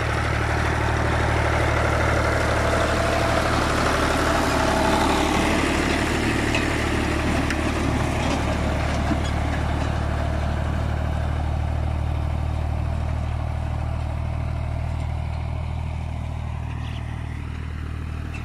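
Ghazi tractor's diesel engine running steadily under load, pulling a tillage harrow through hard, wet ground: a constant low drone with rougher mechanical noise over it that eases off about halfway through.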